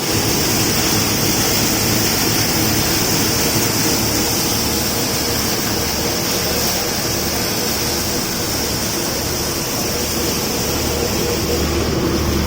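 Tractor-driven paddy thresher running steadily: a low engine hum under a constant loud rushing hiss from the thresher's drum and fans.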